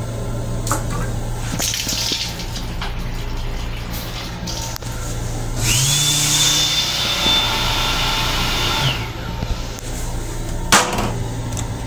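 M7 commuter-train toilet flushing: a motor spins up with a rising whine and runs for about three seconds with a rushing noise, then winds down. A sharp knock follows near the end, over the steady low hum of the moving train.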